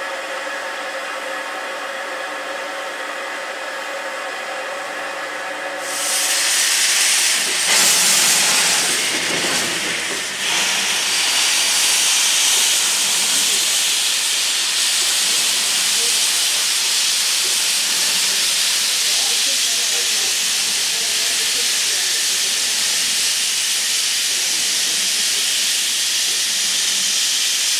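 Saxon IV K No. 176 narrow-gauge steam locomotive sounding a long, steady steam-whistle blast that stops about six seconds in. A loud, steady hiss of steam blowing from its cylinder drain cocks follows.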